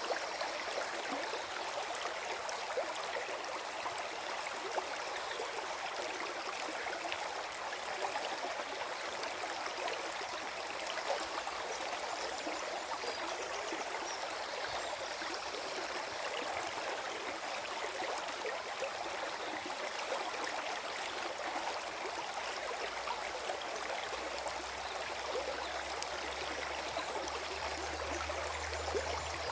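Forest stream flowing steadily, a constant gurgling babble of water. A faint low hum comes in near the end.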